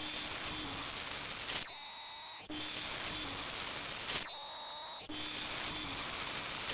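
Synthesized sci-fi sound effect: a bright hissing rush that swells for about a second and a half, then cuts off into a short tail of high ringing tones. It repeats three times, evenly spaced.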